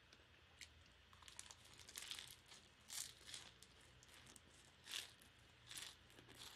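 Faint, crisp crunching and crackling of a fried egg roll wrapped in lettuce being bitten and chewed, with a few louder crunches about a second apart in the second half.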